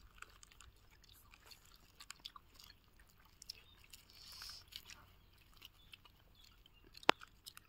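Close-up chewing and mouth smacking of someone eating ripe jackfruit flesh: faint scattered wet clicks, with a sharper click about seven seconds in.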